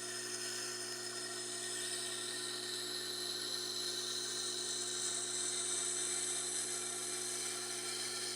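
Tormek T-8 sharpener's motor humming steadily while an Elmax steel knife blade is ground on its CBN wheel, making an even high hiss that grows slightly louder.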